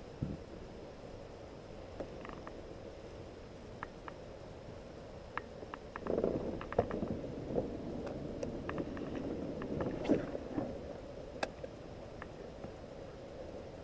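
Water moving against a kayak's hull, with scattered small knocks and clicks, louder and busier from about six seconds in to about eleven seconds.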